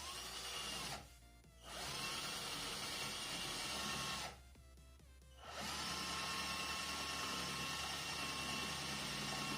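Philco PPF02MF drill-driver drilling into a masonry wall in three runs: its motor spins up with a rising whine at each start, then runs steadily with the grinding of the bit, with two short pauses about a second and four seconds in.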